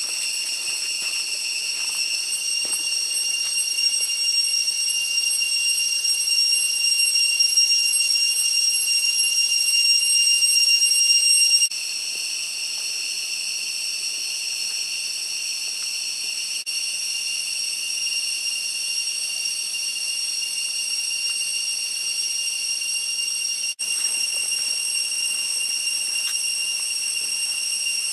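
Cicadas droning in a steady, shrill, high-pitched chorus. It grows louder over the first dozen seconds, then drops abruptly to a lower level, with a momentary break near the end.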